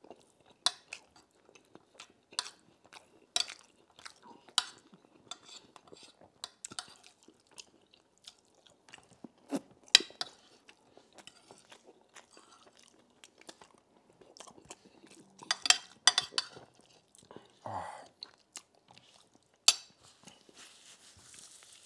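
Close-miked chewing and wet mouth sounds of a man eating rice, beans and meat in palm-nut stew, with a metal spoon scraping and clinking sharply on a plate now and then.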